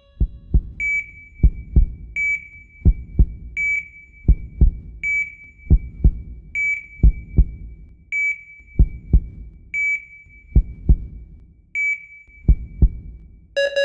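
Heart monitor sound effect: a short electronic beep about every second and a half, eight in all, over pairs of dull heartbeat thumps.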